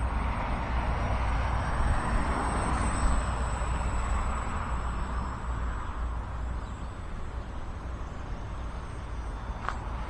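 Small electric RC biplane's motor and propeller buzzing in flight, growing louder a second or two in and then fading as it passes and moves off. Wind buffets the microphone, with a low rumble throughout, and there is one sharp click near the end.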